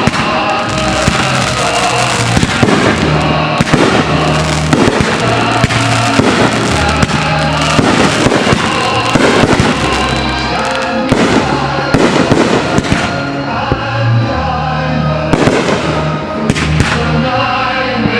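Aerial fireworks bursting in a rapid, continuous barrage of bangs and crackles, over loud music playing through the show's sound.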